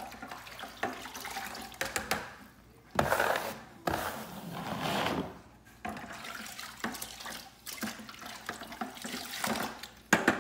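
A plastic wallpaper smoother dragged over a freshly pasted photomural panel in several swishing strokes of uneven length, with a few light clicks between them.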